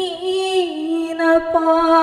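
A woman singing a naat, an Urdu devotional song in praise of the Prophet Muhammad, in long held notes that glide between pitches, with a step down in pitch about one and a half seconds in.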